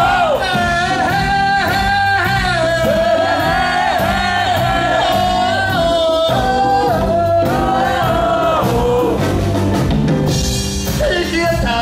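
A live band playing: male vocals held in long sung notes over electric guitars, bass and a drum kit. The voice drops out briefly near the end while the band keeps playing.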